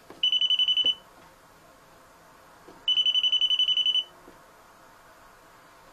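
Pen-type non-contact voltage detector beeping rapidly in two bursts, the first under a second long and the second about a second long, as its tip is put into a live mains socket: it is sensing voltage.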